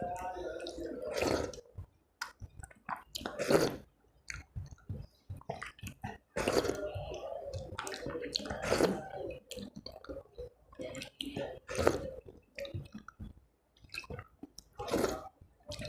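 Close-up wet eating sounds from rice with masoor dal: irregular squishing, smacking and chewing, with a few longer wet stretches.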